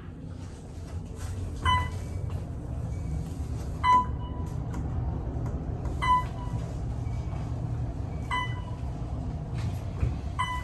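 Otis traction elevator car travelling downward with a steady low ride rumble. A short electronic chime sounds five times, about every two seconds.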